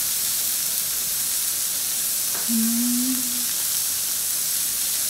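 Slices of Sendai wagyu beef sizzling steadily on a tabletop grill plate, with a short hummed "mm" from the eater about two and a half seconds in.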